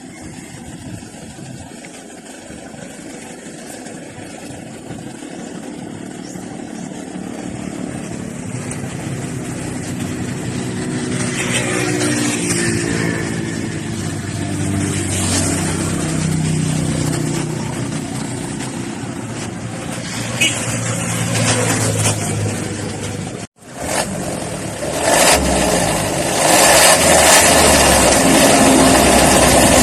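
Toyota HiAce 2.5-litre D-4D diesel engine running and being revved, its pitch rising over several seconds. After a sudden break, it runs louder and rougher to the end.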